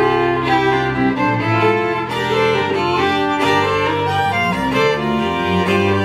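Two fiddles playing an old-time fiddle tune together, with quick bowed notes over an upright double bass.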